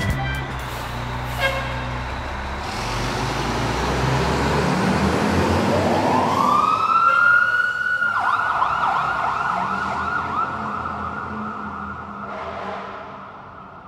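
Fire engine siren winding up, rising over about a second and a half to a high held wail that holds and then dies away near the end, over steady vehicle noise.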